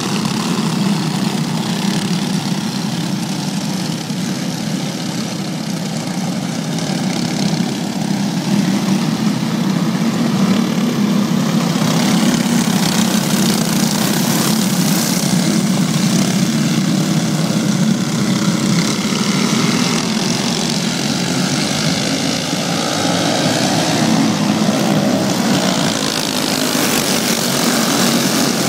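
A pack of dirt-track racing karts with stock Briggs & Stratton Animal single-cylinder engines, running hard around the oval. The engine noise swells as the field sweeps past, most strongly about halfway through and again near the end.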